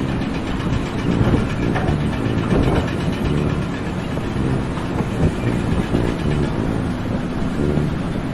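Heavy machinery running steadily with a continuous low rumble.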